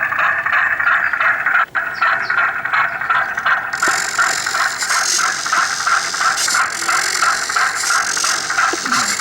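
RC model fishing boat running: a steady mechanical rattling with a fast, even pulse of several beats a second. Nearly four seconds in, a high hiss suddenly joins it.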